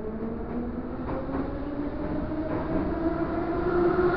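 Metro train accelerating away from a station, heard from inside the carriage: the traction motors' whine rises steadily in pitch over the running rumble, growing louder as the train picks up speed into the tunnel.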